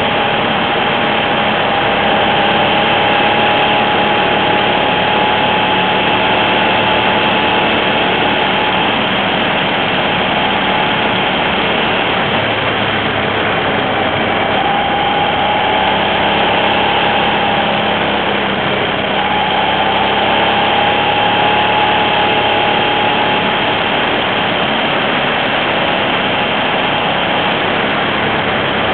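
Hyosung GT650 Comet's V-twin engine running at low revs while the motorcycle is ridden through a series of curves, heard over a steady rush of noise; its note wavers a little and dips briefly about two-thirds of the way through.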